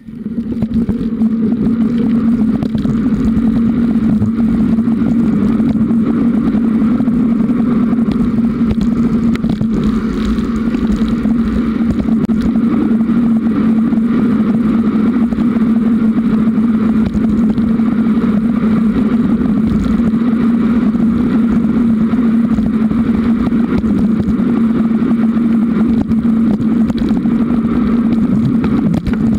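Riding noise from a camera on a Giant Roam 2 hybrid bicycle, mostly wind and tyre rumble on pavement. A loud, steady low hum runs under it with no letting up.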